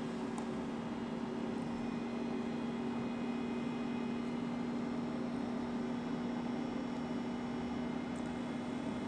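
A steady mechanical hum with a faint hiss behind it, unchanging in pitch and level.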